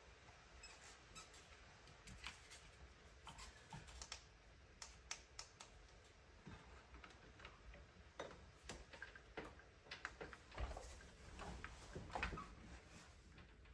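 Faint, irregular clicks and taps of someone working at a computer desk: keyboard and mouse clicks and handling of desk equipment. The sounds grow louder near the end, with a few heavier knocks and bumps.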